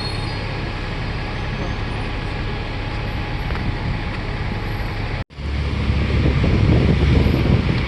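Steady city street traffic noise from a moving bus. About five seconds in, the sound cuts out for an instant and comes back with a louder, rougher low rumble.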